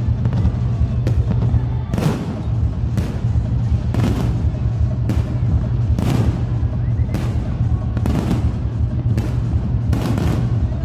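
Fireworks bursting, a sharp bang about every half second to second, over loud music with a steady deep bass.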